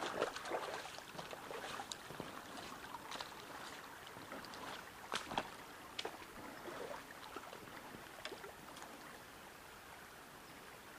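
Shallow stream water trickling, with scattered irregular splashes and clicks that are denser in the first few seconds and thin out toward the end.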